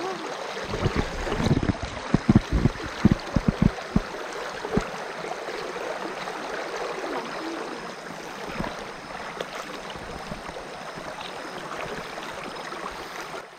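Shallow river flowing over a stony bed, a steady rushing ripple of water. A run of low thuds comes over the first few seconds.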